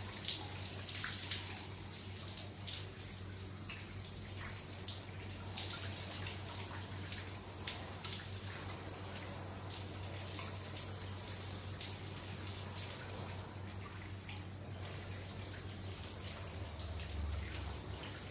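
Shower running steadily, its spray splashing onto soaked clothes and the shower floor with scattered small patters and drips. A steady low hum sits underneath.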